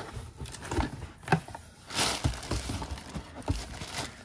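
Handling sounds from unpacking a cardboard shipping box: flaps and plastic-bagged packages being moved, giving scattered taps and knocks, with a short, louder rustle of cardboard and plastic about two seconds in.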